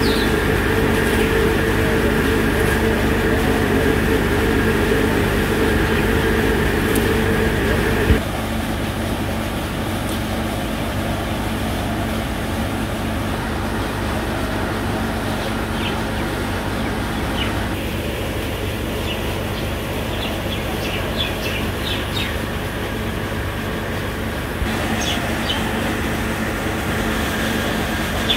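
Steady outdoor background noise with a machine-like hum holding several steady tones, which drops away abruptly about eight seconds in, leaving a plainer steady hiss. Birds chirp now and then through the second half.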